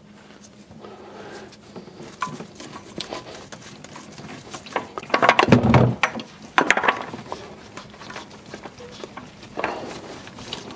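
Clicks, scrapes and knocks of hands and a tool working loose the spin-on hydraulic oil filter under a compact tractor, with a louder scraping, rustling stretch about five to seven seconds in.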